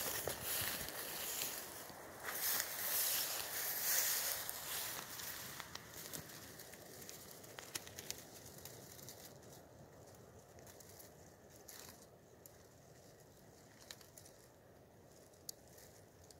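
Footsteps and dry grass rustling underfoot for the first several seconds, then it settles to a faint quiet background with a few small clicks.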